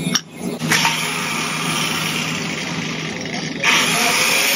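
Handheld angle grinder with a freshly fitted grinding disc running steadily, getting clearly louder about three and a half seconds in.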